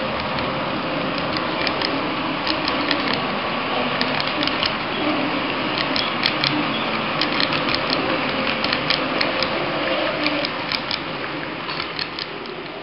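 HO-scale model freight cars rolling past close by: a steady rolling clatter of small metal wheels on the track, with rapid irregular clicking, getting quieter near the end as the last car goes by.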